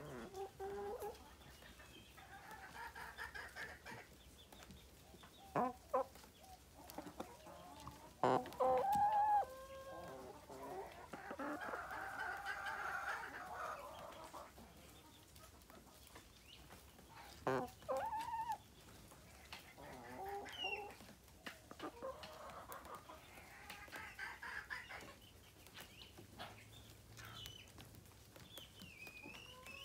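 Chickens clucking close by, a string of short and longer calls, with a few sharp knocks right at the microphone about six, eight and eighteen seconds in.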